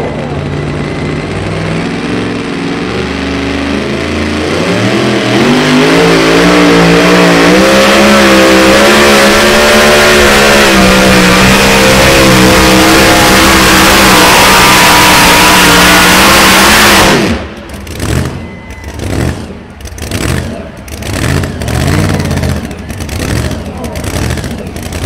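Supercharged engine of a super modified two-wheel-drive pulling truck under full throttle on a pull. About five seconds in it revs up, then runs loud and steady with a wavering pitch for some ten seconds, and it cuts off abruptly near the end of the pull, leaving quieter, choppy sound.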